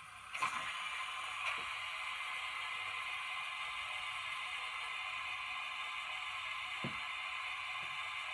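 Small electric motor and gearing of a radio-controlled 7mm-scale model crane running with a steady whir as the crane slews. It starts with a click about half a second in, and a couple of faint clicks follow.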